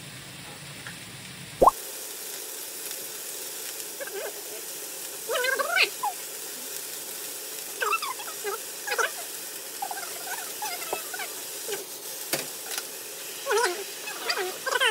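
Pan of cabbage sizzling as it is stir-fried. About two seconds in there is a single quick rising 'plop' sound effect, after which the sound runs fast-forwarded: sped-up, squeaky chattering voices over the frying hiss.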